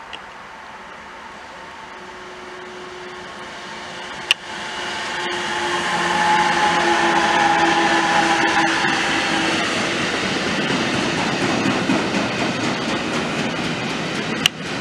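DB class 185 electric locomotive with a train of loaded car-transporter wagons passing close by. It grows louder as it approaches, with a steady hum from the locomotive, then the wagons rolling over the rails. A sharp click about four seconds in.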